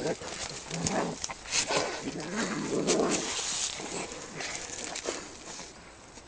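Domestic cats fighting: wavering yowls and harsh noisy bursts, loudest in the first half and fading after about four seconds.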